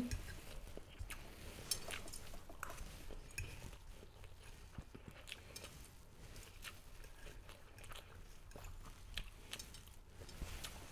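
Faint chewing of fried rice eaten off a fork, with scattered small clicks and ticks.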